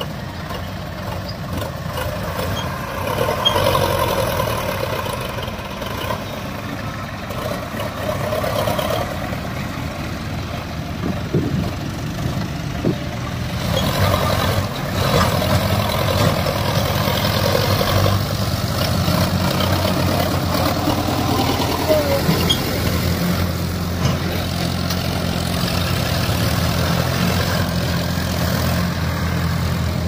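Diesel tractor engines running steadily under load: a Sonalika DI 750 III hauls a loaded sand trolley through soft, rutted sand, with a Powertrac tractor running close behind.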